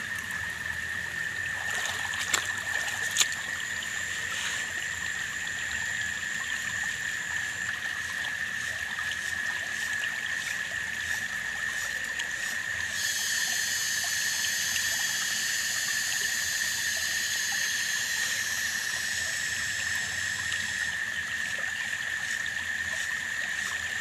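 Shallow stream water trickling over rocks, with a steady high tone running through it. From about 13 to 21 seconds in, a high buzzing joins the water sound, and there are two sharp clicks between two and three seconds in.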